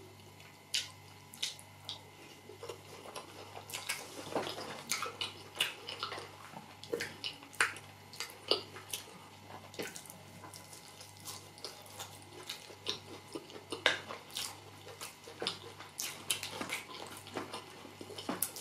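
Close-up eating sounds of a person chewing soft rice and beans porridge: irregular wet mouth clicks and smacks, with a plastic spoon now and then scraping a glass dish. A faint steady low hum runs underneath.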